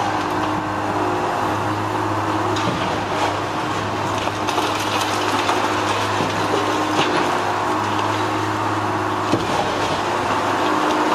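Steady drone of a heavy machine's engine, with a constant low hum, and scattered knocks and clatter of concrete debris as a wrecking ball breaks up a concrete building.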